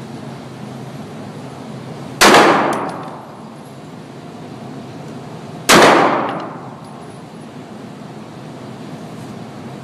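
Two handgun shots about three and a half seconds apart, each loud and sudden with a long echoing decay.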